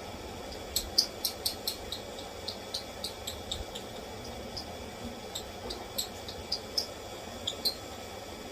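Lovebirds chirping: short, high-pitched chirps at an uneven pace, coming thickest about a second in, over a steady faint hiss.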